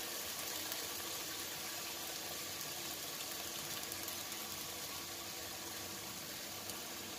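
Marinated pork chops sizzling steadily in a dry nonstick frying pan, cooking in their own marinade with no oil as they start to brown.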